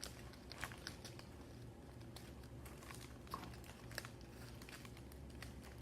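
Faint handling noises of slime-making supplies: a few scattered light clicks and crinkles over a low steady room hum.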